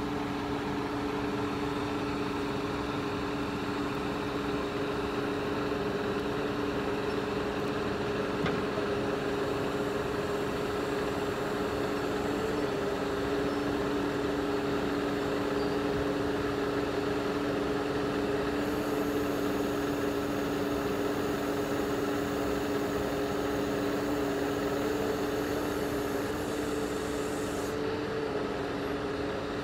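Scania R124 truck's diesel engine running steadily with its loader crane's hydraulics working, a steady two-note whine over the engine note as the crane boom slews.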